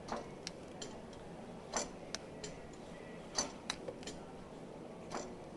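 A faint scatter of sharp clicks and light knocks at uneven intervals, about ten in all, the strongest about two, three and a half and five seconds in.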